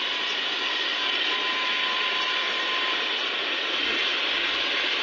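Steady rushing noise of road traffic.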